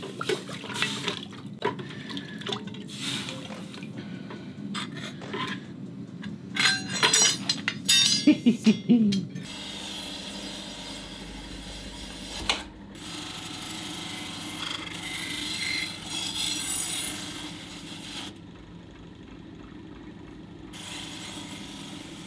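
Hot forged steel being cooled in water: clinks and splashes of metal going into the water, loudest a little before halfway, then a steadier hiss.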